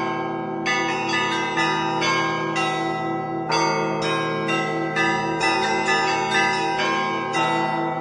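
Russian Orthodox church bells in a full peal (zvon): the small bells are struck in a quick, uneven pattern of two or three strokes a second over the steady hum of the larger bells ringing on.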